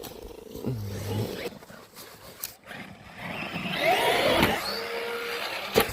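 Traxxas Maxx RC monster truck's electric motor whining as it accelerates, the sound swelling and rising in pitch to its loudest about four seconds in.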